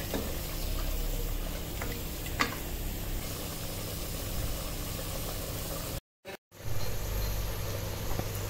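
Mutton curry simmering in an open stainless-steel pressure cooker on the stove: a steady bubbling hiss over a low hum, with a single sharp click about two seconds in. The sound drops out for a moment a little after six seconds in.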